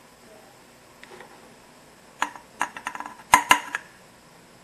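A string of sharp knocks and clinks from a wooden spoon against a metal bowl and pan while thick ube halaya is scooped into the bowl. They come sparsely at first and then thicken into a rapid cluster, with the loudest two knocks a little after three seconds in.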